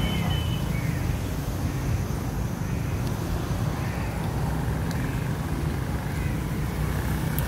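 A crow cawing faintly twice within the first second, over a steady low outdoor rumble.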